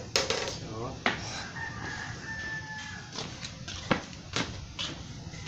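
A rooster crowing, its call ending in a long held note, over a series of sharp clicks and knocks from plastic scooter fairing parts being handled.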